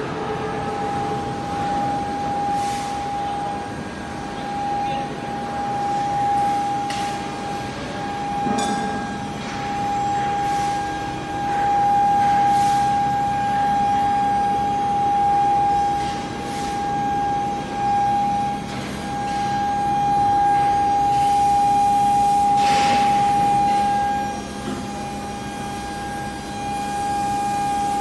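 Intermediate-frequency induction furnace running, giving off a steady whine that rises and falls in loudness, with a few short knocks.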